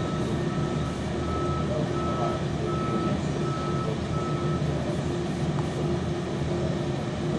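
Intermodal gantry crane's warning beeper sounding at just over one beep a second over the steady running of its engine; the beeps stop about two-thirds of the way through while the engine runs on.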